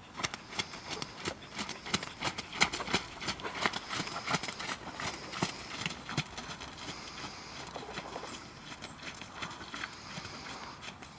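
A horse's hoofbeats at a steady trot on wet, puddled sand footing, a regular run of soft strikes. Louder in the first half, softer after about six seconds.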